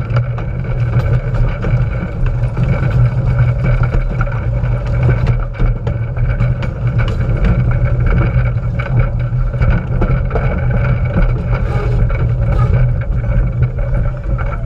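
Small-gauge train running along the track, heard close up at rail level: a steady low rumble with scattered sharp clicks.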